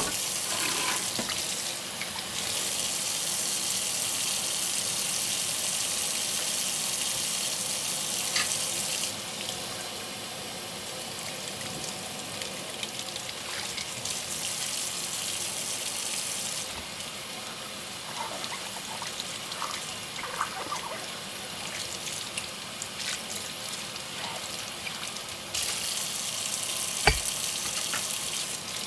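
Kitchen tap running into a sink during hand dishwashing. The flow is heavier for the first third and again near the end, with a few light clinks of dishes and one sharper knock near the end.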